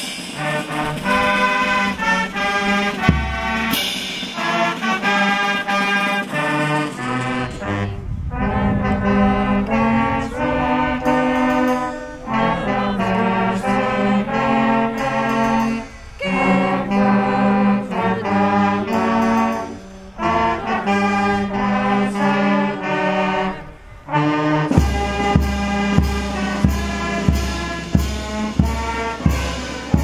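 Brass band music playing a melody in phrases of about four seconds. A steady drum beat of about two strokes a second comes in near the end.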